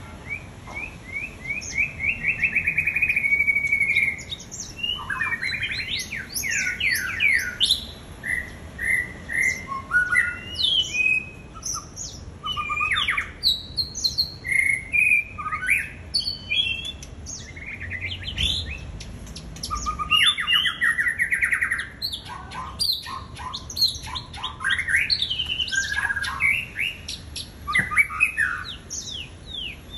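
White-rumped shama singing a long, varied song of rapid trills and rising and falling whistled notes, in bursts with short pauses between phrases.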